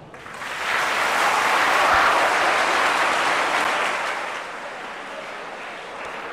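Audience applauding at the end of a song. The clapping builds over the first second or two, then tapers to lighter clapping from about four seconds in.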